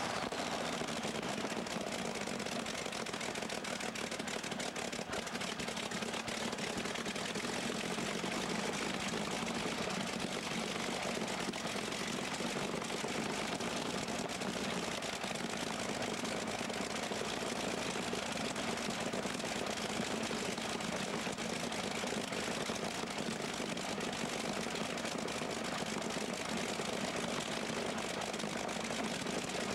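Big multi-cylinder engine of a modified pulling tractor, fitted with a row of open individual exhaust stacks, idling steadily with an even, unchanging rumble.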